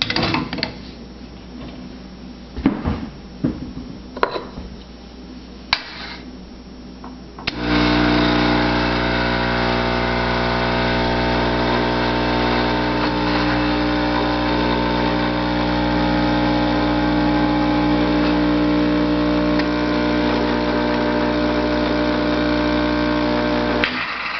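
A few clicks and knocks of handling espresso equipment, then a Salvatore semi-automatic espresso machine's pump starts about seven seconds in and runs with a steady hum for roughly sixteen seconds while a shot is pulled, stopping just before the end.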